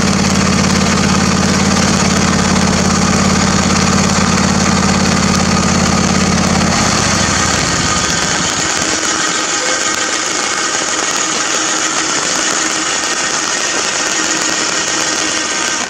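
Electric winch on a John Deere LA145 lawn tractor winding in its cable and hauling the tractor out of a mud hole, with the machinery running steadily. A low hum drops away about seven seconds in, leaving a higher steady whir.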